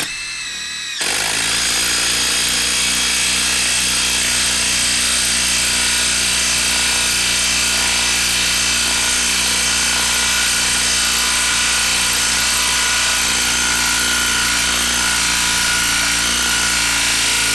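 Hilti brushless cordless impact driver driving a 4-inch lag screw into a wood log. The motor spins up with a rising whine for about a second, then the driver hammers steadily and without a break as it impacts the screw in, stopping at the end.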